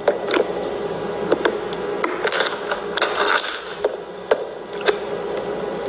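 Light metallic clicks and knocks, about eight at uneven intervals, from the metal hasp and latch of a small Louis Vuitton hard-sided trunk being fingered and worked open.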